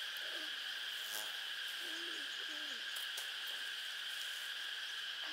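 Steady, high-pitched insect chorus droning in the field, with a few faint, low, wavering calls and a couple of light clicks over it.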